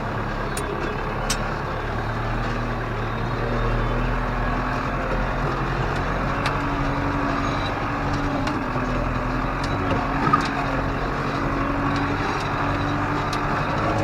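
Tractor engine running steadily under load while pulling a land roller across a field, with a few sharp clicks and knocks in between.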